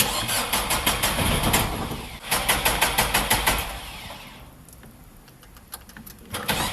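Car engine cranking on its starter motor with a rhythmic pulse, a few beats a second, without catching. It cranks for about two seconds, breaks briefly and cranks again before trailing off, goes quiet, then starts cranking again near the end.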